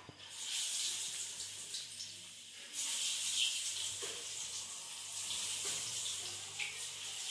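Hand mixing sliced potatoes into wet pakora batter in a steel bowl: an uneven, wet, sloshing rustle that grows louder about three seconds in.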